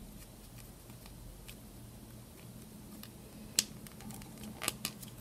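Small plastic clicks and taps as a miniature toy figure is handled and pressed into place on a small plastic toy building: faint, with one sharper click about three and a half seconds in and a few more near the end.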